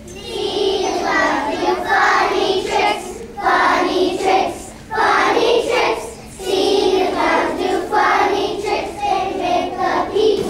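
A group of kindergarten children singing a song together.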